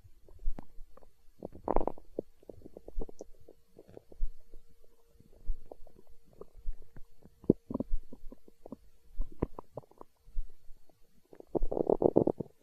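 Human stomach growling: a run of short gurgles, a longer rumble about two seconds in, and the loudest, longest rumble near the end.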